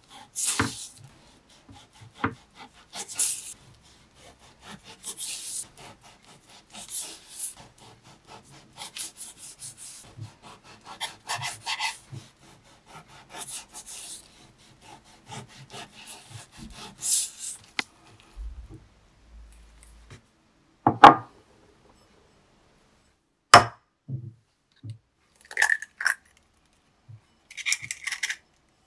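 A knife sawing through raw bacon in repeated scraping strokes, with light knocks of the blade on the board. After a pause come two sharp, loud knocks as an egg is rapped on a bowl, then the eggshell crackles as it is broken open.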